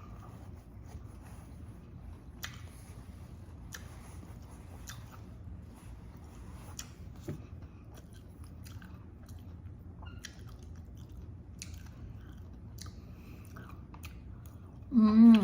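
Close-miked mukbang eating: chewing and biting food with scattered small crunches over a low steady hum. Near the end comes a brief, loud, wavering pitched vocal sound.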